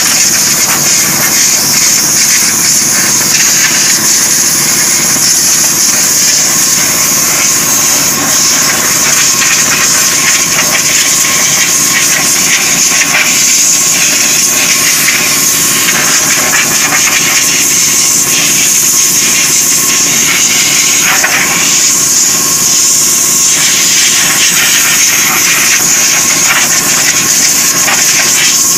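Workshop machine running steadily with a strong hiss and a faint steady whine, of the kind an air compressor feeding a spray line makes.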